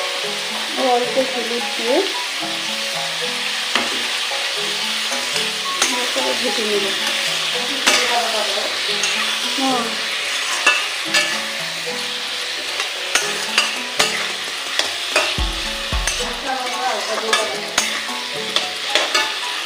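Diced potato, eggplant and ridge gourd sizzling in hot oil in an aluminium kadai, under a steady hiss. A metal spatula scrapes and taps against the pan at irregular moments as the vegetables are stirred.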